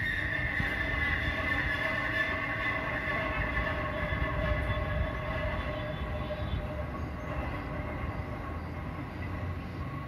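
Machinery at a neighbouring workshop or sawmill running: a steady metallic whine in several tones over a low rumble, the highest tones fading about two thirds of the way through.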